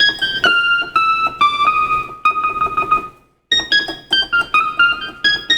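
Yamaha electronic keyboard playing a melody of single notes struck one at a time, mostly stepping downward in pitch. The playing stops briefly about three seconds in, then more notes follow.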